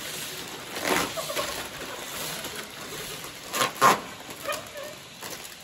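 Foil Lay's chip packets crinkling as they are handled, with a few sharp crunches of potato chips being bitten, two of them close together about two-thirds of the way in.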